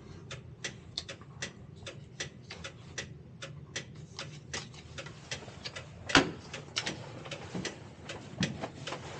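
Steady ticking of a tram's hazard-light flasher, a few clicks a second, with one louder knock about six seconds in.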